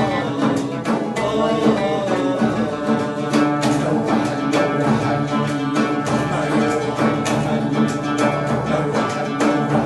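Acoustic Arabic song played on oud, classical guitar and frame drum, with men singing.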